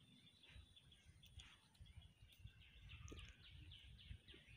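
Near silence: faint outdoor ambience with small birds chirping over and over in the background and a faint low rumble.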